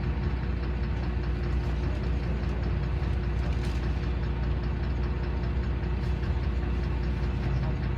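LiAZ 5292.21 city bus running, a steady engine drone and low hum heard from inside the passenger cabin.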